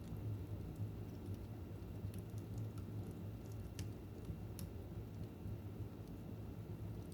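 Fire in a fireplace burning with a low, steady rumble and sparse sharp crackles and pops, the clearest about four seconds in and again half a second later.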